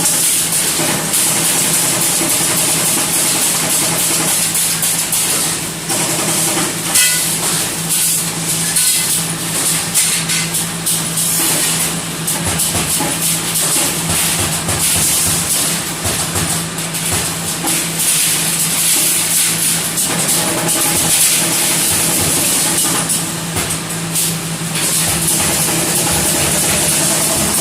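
Electric spot welder running, with a steady hum and hiss and irregular short crackles, as when welding cage wire.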